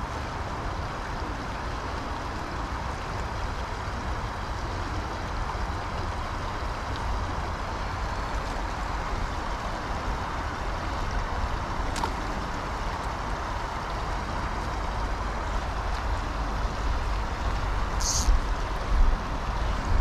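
Steady rush of running stream water, with a low rumble of wind on the microphone. A single sharp click sounds about halfway through, and a brief hiss near the end.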